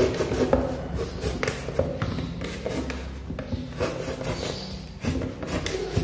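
Utility knife blade being drawn through thick corrugated cardboard: irregular scratchy scrapes and small clicks as the cut goes down the flap.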